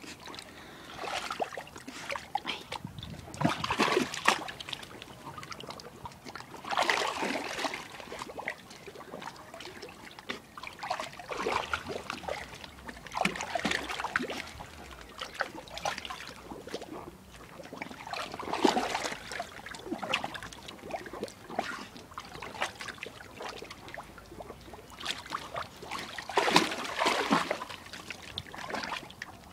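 Water splashing and sloshing in a paddling pool in irregular bursts every few seconds, as dogs plunge their heads and paws in to fish for stones.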